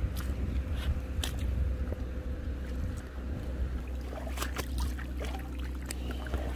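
Steady low wind rumble on the microphone, with a few scattered sharp clicks.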